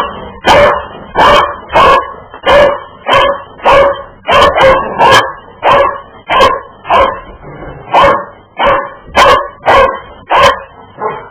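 Dog barking over and over in short, loud barks, nearly two a second, in an even rhythm: the dog's funny sound at being bumped on the rear by a micro drone.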